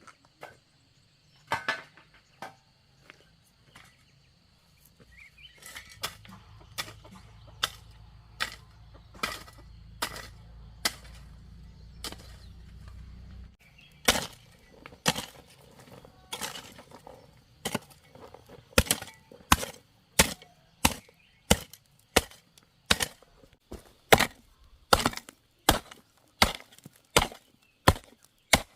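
Chopping with a blade: scattered strokes at first, then a steady rhythm of about one and a half chops a second through the second half.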